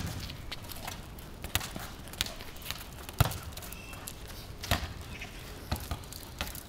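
A football being kicked and bouncing on a tarmac court: six or seven sharp thuds at uneven intervals, the loudest at the very start and about three seconds in.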